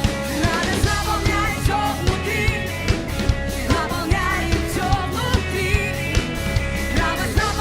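A rock-style song: a sung vocal over a steady drum beat.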